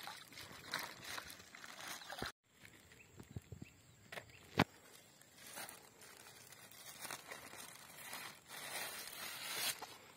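Water pouring out of a plastic fry bag and splashing into a pond for about the first two seconds. After a brief dropout, faint rustling and handling noises follow, with one sharp click about four and a half seconds in.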